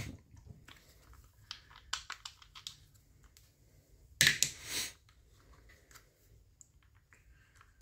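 Light plastic clicks and rattles of an Echo CS-271T chainsaw's top cover and small parts being handled on a workbench, with one louder clatter about four seconds in as a small part is set into a removed plastic cover.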